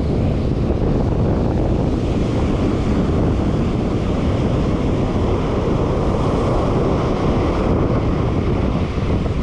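Steady wind noise buffeting the microphone over ocean surf breaking and washing up a sandy beach.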